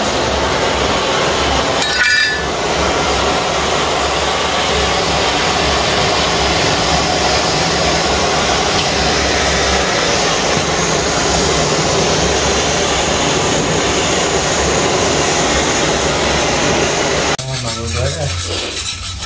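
Handheld gas blowtorch burning with a steady loud hiss as its flame singes the quills and hair off a porcupine carcass. The hiss cuts off suddenly near the end.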